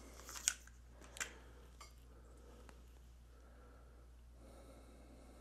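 A few light clicks and taps of small electronic parts being handled on the bench, in the first two seconds, then quiet with a steady low hum.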